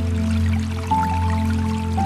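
Calm new-age music of long held notes, with a new, higher note coming in about a second in, over a light patter of dripping water.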